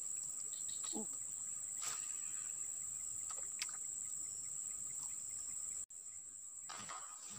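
Steady high-pitched insect chorus, with a few faint clicks and a short call about a second in. The sound cuts out for an instant near six seconds, then the insects carry on.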